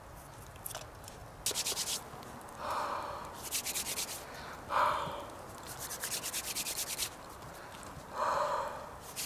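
A person rubbing their hands together in quick, rhythmic strokes, alternating with breathy blows into cupped hands, three times each, to warm cold hands.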